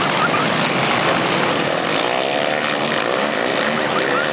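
Several racing quad bikes running flat out on sand in a dense pack, their engines making a loud, continuous buzz. About two seconds in, individual engine notes rise and fall as machines go past.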